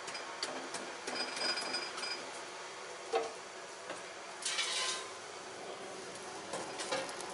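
Light metallic clinks and short rings of blacksmith's tongs and steel stock being handled at a forge. There is a brief rushing hiss about halfway through.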